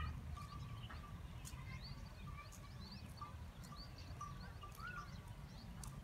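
Small birds chirping and twittering, with many short notes and quick glides, over a steady low rumble.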